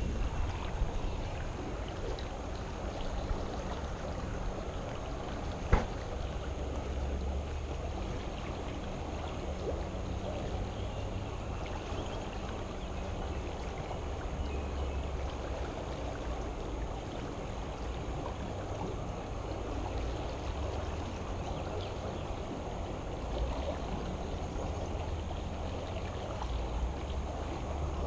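Steady rushing of a flowing creek, with a low rumble that swells and fades and one sharp click about six seconds in.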